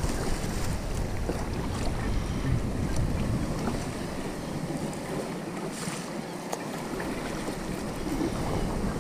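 Wind rumbling on the microphone over lapping sea water as a kayak is paddled, with light paddle splashes; a brief louder splash comes about six seconds in.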